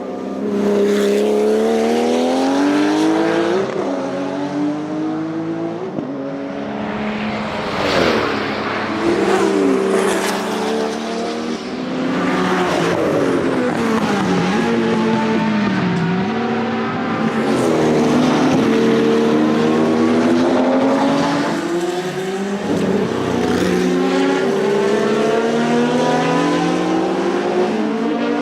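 Porsche 935 K3 Kremer's 3.2-litre twin-turbo flat-six racing engine at full throttle, its pitch climbing again and again and dropping sharply between climbs as it shifts gears and lifts for corners.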